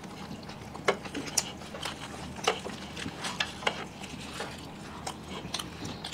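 Close-up eating sounds: people chewing and biting into egg rolls, with irregular crisp crunches and mouth clicks, roughly one or two a second.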